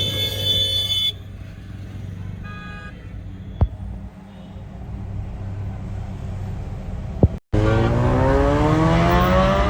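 Car engine running, with a short high tone at the start and another brief tone about three seconds in. After an abrupt cut near the end, the engine is louder and climbs in pitch as it accelerates, through an aftermarket exhaust.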